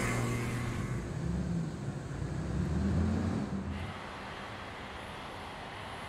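A jeepney's engine revs as it drives past, its pitch rising and falling and loudest about three seconds in. Just before four seconds this gives way abruptly to a steady, even background hiss.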